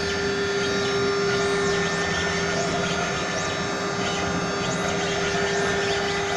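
AKG1212 CNC router engraving machine running: a steady whine over constant machining noise, with several short high whines that rise and fall in pitch.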